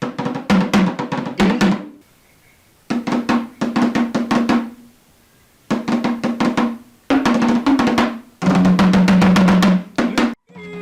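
Drumming: phrases of rapid drum strikes and rolls broken by short pauses, over a steady low note.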